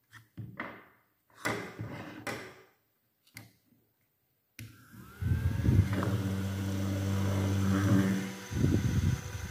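Plastic clicks and scrapes as a small handheld USB mini fan is handled, then its little electric motor spins up with a rising whine and runs with a steady hum and blade whir for about three seconds before stopping abruptly.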